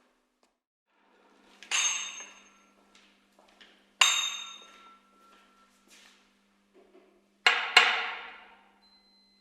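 Sharp struck impacts that ring and fade over about a second. There is one early, one about four seconds in, and two in quick succession near the end, with faint small ticks in between.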